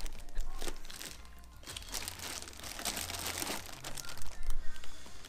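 Clear plastic bag crinkling and rustling as it is handled around a car subwoofer, in irregular bursts that get loudest near the end.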